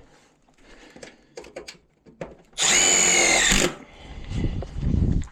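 Power drill driving a self-tapping screw: a steady motor whine for about a second, with scattered clicks and knocks before it and a low rumble near the end.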